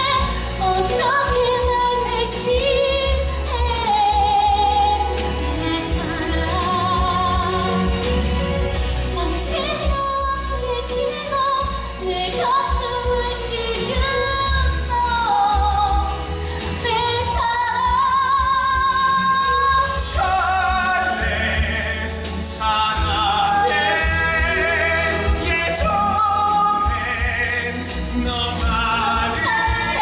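Musical-theatre singing with vibrato from a man and a woman over instrumental accompaniment, a stage number sung live.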